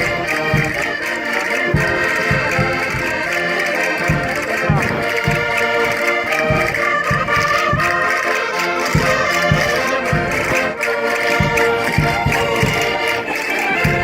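Concertinas (Minho button accordions) playing a lively folk dance tune in chords, over a steady low beat.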